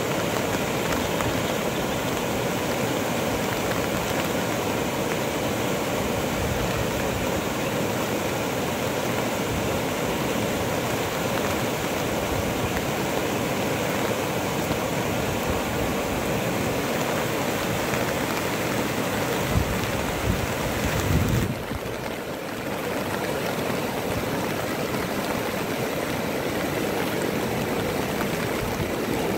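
Steady rush of flowing floodwater, with a few low thumps about two-thirds of the way in.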